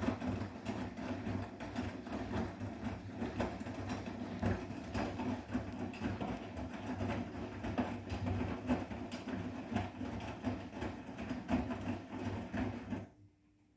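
Bosch WGA25202TR front-loading washing machine running mid-wash: a steady mechanical rumble with many small knocks and clicks from the turning drum and laundry. It stops abruptly near the end.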